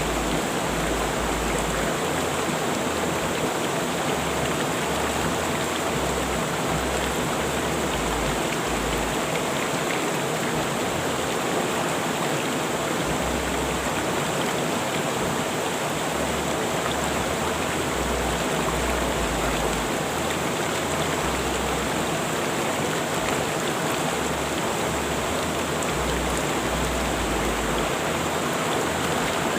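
River water rushing and flowing steadily, a continuous even sound without breaks.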